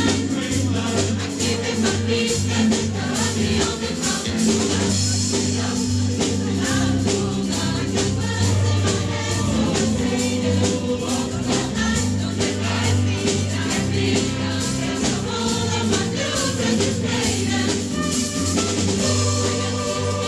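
A choir singing to an accompaniment with low notes and a steady percussion beat.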